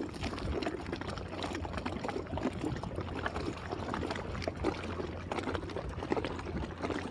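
Small waves of the Dead Sea lapping and gurgling against a salt-crusted shore, a busy patter of little splashes and trickles with a steady low rumble beneath.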